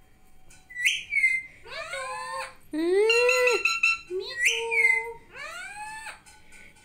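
Parakeet calling: a run of about seven short pitched calls, some jumping sharply up in pitch and dropping back, others arching up and down.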